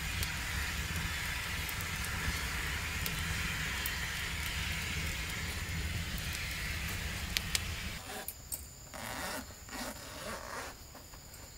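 Wood fire burning with a steady hiss and a few sharp crackles. About eight seconds in it gives way to quieter, intermittent rustling, with an insect's steady high chirring coming in near the end.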